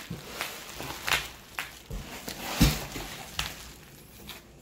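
Bubble wrap rustling and crinkling as it is handled, with scattered sharp crackles and a dull knock about two and a half seconds in.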